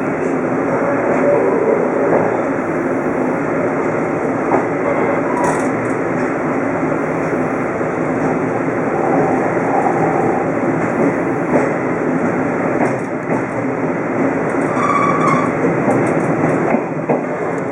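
Twilight Express 24-series sleeper coach running along the line, a steady rumble of wheels on rail with a few faint clicks.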